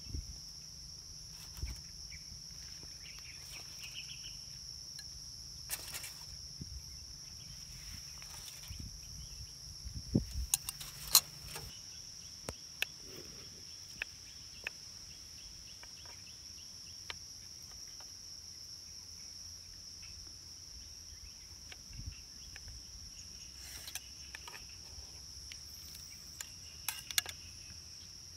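A steady high-pitched drone of insects. Over it come scattered sharp clicks and taps of a knife working small fruits in a bowl, loudest as a quick cluster about ten seconds in and again near the end.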